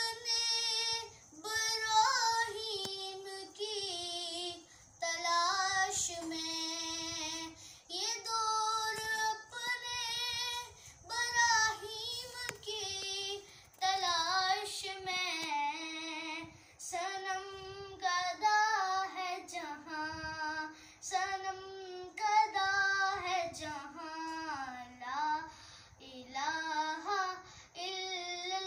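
A boy singing Urdu verse solo and unaccompanied in a high child's voice. He sings in melodic phrases of one to three seconds, with short pauses for breath between them.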